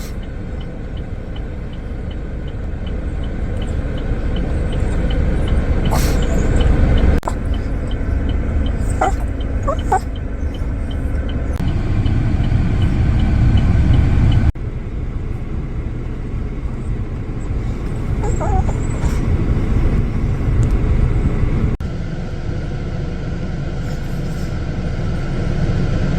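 Steady low rumble of road and engine noise inside a moving car, with abrupt changes in level three times.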